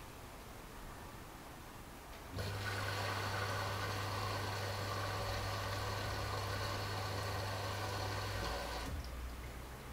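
AEG Lavamat L88489FL washing machine drawing in water for its last rinse: the inlet valve opens suddenly about two and a half seconds in, and water rushes into the drum with a steady mains hum, then the flow shuts off about a second before the end.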